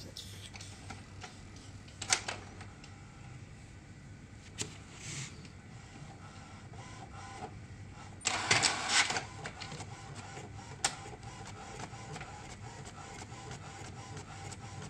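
HP DeskJet Ink Advantage 3788 inkjet printer printing a colour page: steady mechanical running with faint regular ticks and a few sharp clicks. There is a louder stretch of mechanism noise lasting about a second, around eight seconds in.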